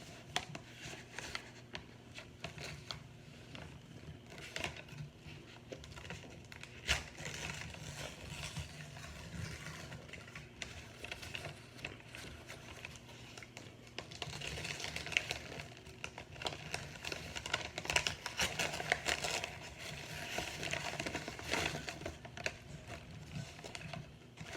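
Crunching and chewing of crispy microwaved cornstarch chunks: a steady run of small crackles and crunches, busier and louder in the second half, with one sharper snap about seven seconds in.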